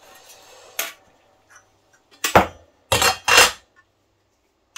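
Hard computer-case parts being handled and set down: a light click, then three louder clunks in quick succession.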